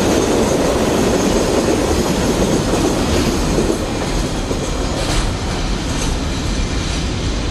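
Freight train container wagons rolling past, their wheels rumbling and clacking over the rail joints. The rumble eases from about four seconds in as the last wagons go by, with a few sharp clacks after that.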